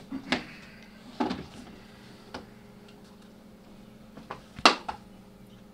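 A few sharp clicks and knocks of small objects being handled on a counter, the loudest near the end, over a steady low room hum.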